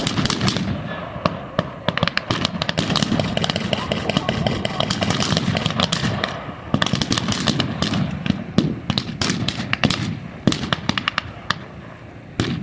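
Small-arms gunfire with blank rounds: many sharp shots, some close and loud, others distant, coming thick and fast in clusters and thinning out near the end.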